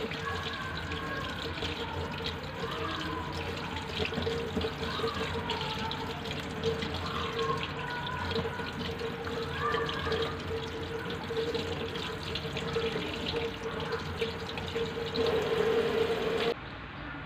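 Tap water running steadily into a stainless steel sink, splashing over a piece of pork loin as it is rinsed and turned by hand. The sound drops off abruptly near the end.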